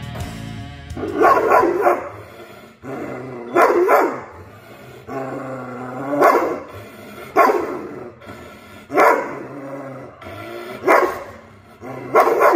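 Giant Schnauzer barking: about seven single barks, one every one to two and a half seconds.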